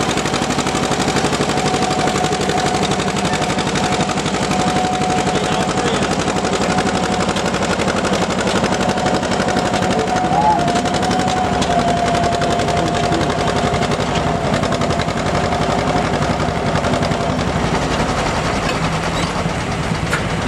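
Farm tractor engine running hard under full load while pulling a weight-transfer sled, its exhaust a rapid, continuous string of loud pulses. A steady whine runs alongside and fades out near the end.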